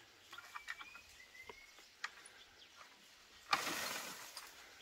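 Two short thin bird whistles with scattered faint clicks in the first two seconds. About three and a half seconds in, a louder burst of rustling noise starts and fades over about a second.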